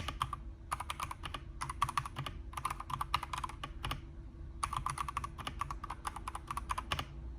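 Typing on a Redragon K668 mechanical gaming keyboard: fast runs of key clicks in short bursts with brief pauses between them.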